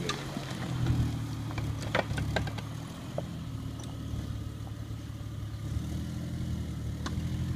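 A 1997 Jeep Grand Cherokee's engine running at low revs as the Jeep creeps off the track into the ditch, with a few sharp clicks and knocks. The revs pick up a little about six seconds in.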